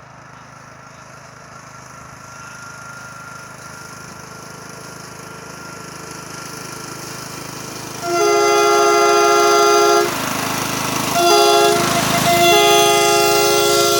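Air-powered multi-chime train horn blowing a loud chord: a blast of about two seconds, a short toot, then a longer blast near the end. Before the first blast there is a steady noise that slowly grows louder.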